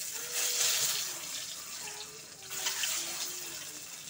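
Boiled eggs sizzling in hot oil in a kadai, a sudden loud hiss that flares again about two and a half seconds in as more eggs go into the oil.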